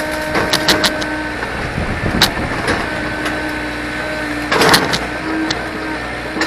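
Excavator working: the diesel engine runs steadily under a hydraulic whine that comes and goes as the controls are worked. Sharp metallic clanks land about half a second in, a little after two seconds and near the end, with a scraping crunch at about four and a half seconds.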